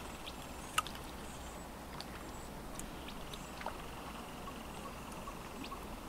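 Small lake waves lapping steadily, with scattered short sharp ticks and splashes, the sharpest one just under a second in.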